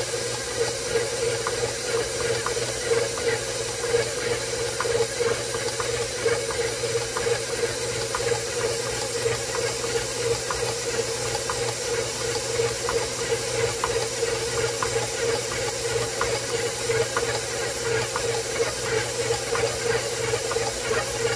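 Electric stand mixer running steadily with a dough hook kneading bread dough in a stainless-steel bowl: an even motor hum with faint light ticks.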